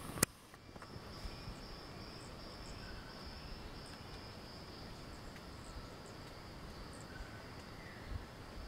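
Forest insects keeping up a steady, high pulsing trill, with one sharp click just after the start.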